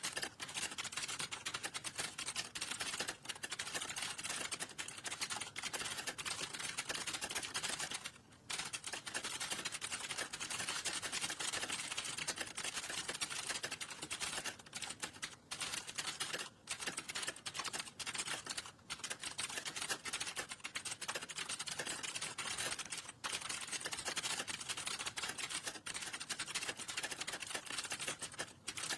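Fast, continuous typing on a computer keyboard, the key clicks running closely together with a few short pauses.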